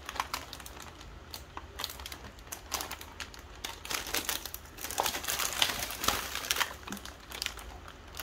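Plastic film wrapper of a Fox's Favourites Biscuit Selection pack crinkling as it is handled and turned over in the hands, in irregular crackles that are densest in the middle.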